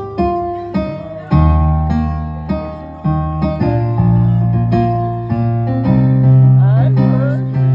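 Keyboard music: piano-style chords struck over a bass line, each chord left to ring before the next.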